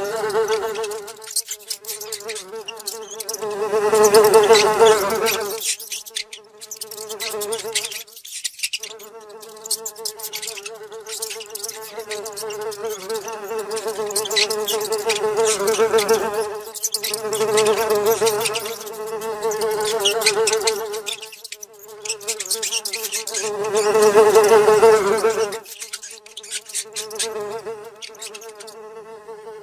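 A fly buzzing steadily, swelling louder and fading again several times as if passing close, with a thin patter of high clicks over it.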